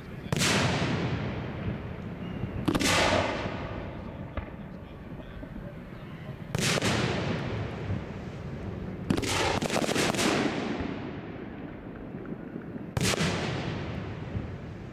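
Aerial firework shells bursting in the sky: five sharp booms a few seconds apart, each dying away slowly over a second or two, with a quick cluster of several reports about nine seconds in.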